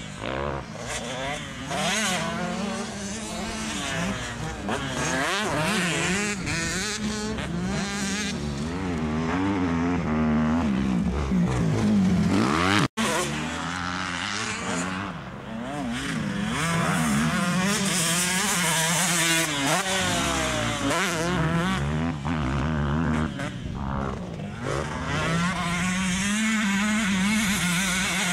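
Motocross bike engine revving hard and backing off over and over as it is ridden round a dirt track, the pitch climbing and dropping with each burst of throttle and gear change. The sound cuts out for an instant about halfway through.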